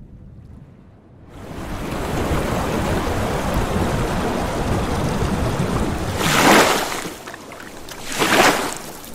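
Water rushing and splashing as a swimmer swims front crawl, starting about a second in, with two louder splashes about two seconds apart near the end.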